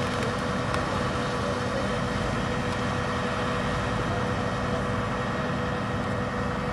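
Crane truck's engine idling steadily: an even low hum with a faint constant tone above it.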